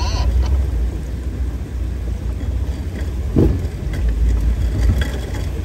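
Jeep Wrangler TJ engine running at crawling speed as it drives through a shallow creek, with a steady low rumble and the noise of water and tyres. A single knock sounds about three and a half seconds in.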